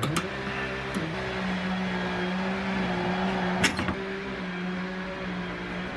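Chainsaw engine running steadily, its pitch rising just at the start and then holding level. Two sharp metal clicks from pliers working the rusty steel trap's spring in the vise, one near the start and a louder one a little past the middle.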